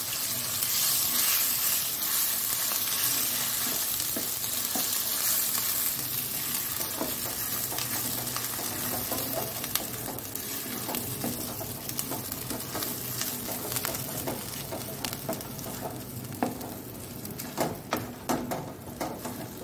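Pointed-gourd paste sizzling in hot mustard oil in a coated kadai while a wooden spatula stirs and scrapes it. The sizzle slowly dies down, and the spatula's scrapes and taps on the pan come more often toward the end.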